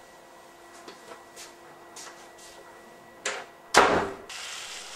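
Faint clicks over quiet room tone, a knock just after three seconds in, then a loud thump a moment later, followed by a steady hiss.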